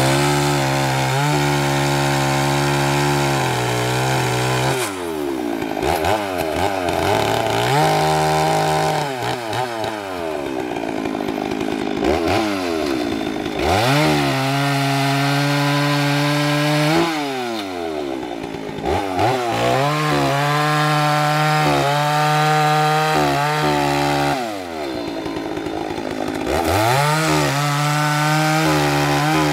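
Two-stroke Stihl chainsaw cutting through the trunk and limbs of a felled tree, the engine held at high revs in the cut. Several times its pitch slides down and climbs back up as the throttle is eased off and opened again between cuts.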